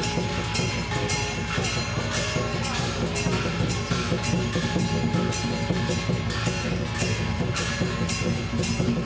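Music with a steady drum beat and percussion.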